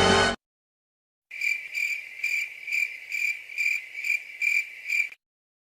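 Crickets chirping, the stock 'awkward silence' sound effect: a steady high chirp pulsing about two to three times a second for nearly four seconds after a moment of silence.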